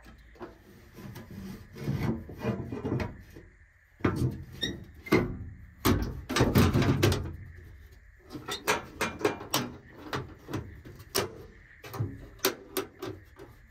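Rustling and scraping as wiring is tucked away into a military truck's circuit-breaker box, then knocks as its metal cover is set down about four to six seconds in. A run of sharp clicks follows as the cover's latches are fastened.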